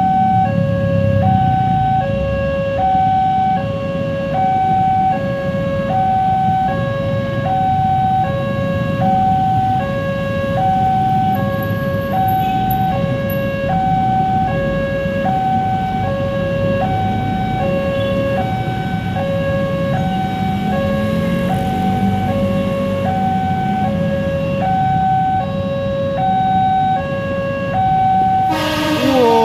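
Railway level-crossing warning alarm, the manufacturer's stock electronic alarm, sounding an evenly alternating high-low two-tone pattern to signal that a train is approaching, over the rumble of idling motorcycles and cars. A short loud horn blast, falling in pitch, comes near the end.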